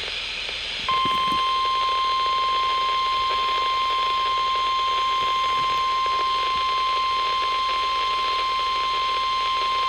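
NOAA Weather Radio 1050 Hz warning alarm tone: a single steady high tone that starts about a second in and holds for about nine seconds over radio hiss. It signals that a warning follows, here a severe thunderstorm warning.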